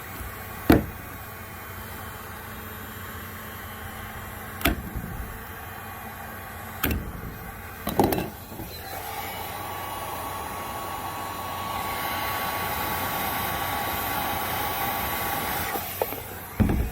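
A few sharp knocks and clicks, then a heat gun starts blowing about halfway through and runs steadily, a bit louder for its last few seconds before cutting off near the end. It is heating the kayak's polyethylene plastic for a melt repair.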